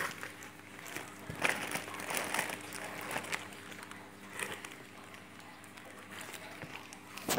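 Plastic fish-shipping bags rustling and crinkling as they are handled, in a few short irregular bursts, over a faint steady hum.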